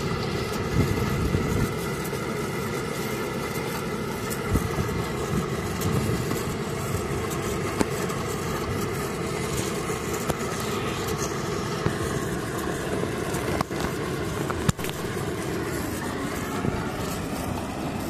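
Truck-mounted borewell drilling rig running steadily, a continuous engine-driven machine noise. Two sharp knocks about a second apart come a little after two-thirds of the way through.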